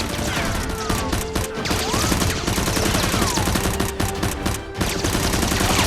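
Rapid, sustained gunfire sound effects, many shots a second with hardly a gap, over background music.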